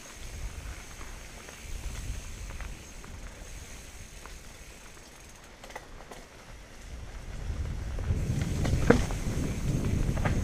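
Mountain bike rolling down a dirt forest trail, picked up by a camera on the bike or rider: a low rolling rumble with scattered clicks and knocks from the bike rattling over the ground. It grows louder over the last couple of seconds, with a sharp knock near the end.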